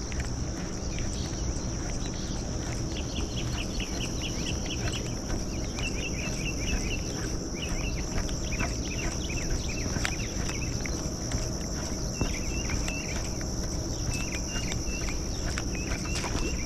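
Steady high-pitched drone of insects, with repeated short chirping calls coming in bursts over it.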